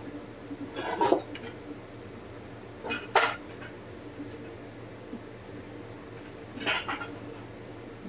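Three short bursts of metallic clinking, about one, three and seven seconds in: small metal parts and hand tools knocking together as they are handled.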